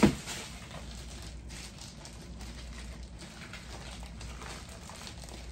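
A short knock at the start, then packing material rustling and crinkling faintly as it is pulled off a boxed picture frame, with soft handling taps.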